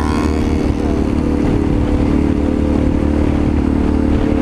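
Motorcycle engine running at a steady cruising speed, its pitch easing slightly in the first moment and then holding, with wind rushing over the on-bike microphone.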